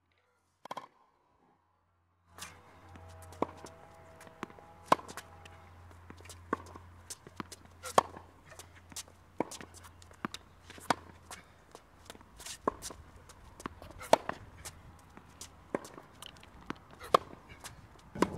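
Tennis rally on a hard court: a sharp racket-on-ball hit about every three seconds, with fainter bounces and the return shots from the far end between, and shoe scuffs as the player moves. It starts after about two seconds of near silence.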